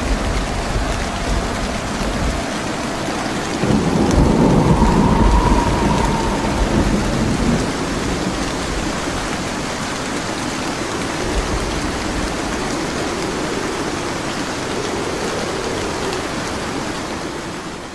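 Steady rain with rolling thunder, a rain-and-thunderstorm sound effect. The thunder swells into a louder low rumble about four seconds in, and the whole storm fades out at the very end.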